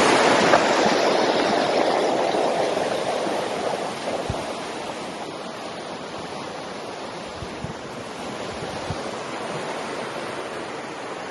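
Rushing creek water, a steady hiss that is loudest at first and fades over the first few seconds, then holds steady.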